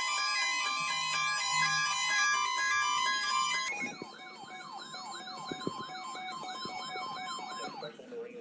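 A melody of steady electronic tones plays first. About four seconds in it gives way to a siren yelping, rising and falling about three times a second, which stops shortly before the end.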